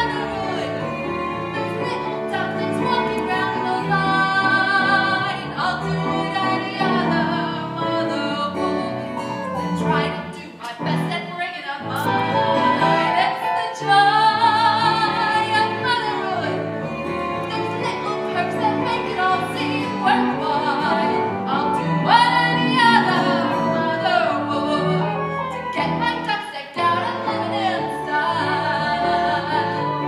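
A woman singing a musical-theatre song over instrumental accompaniment, with a brief dip about ten seconds in.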